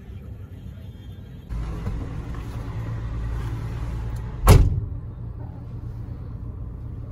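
Vehicle engine running steadily with a low rumble, growing louder about one and a half seconds in. A single loud thump about four and a half seconds in is the loudest sound.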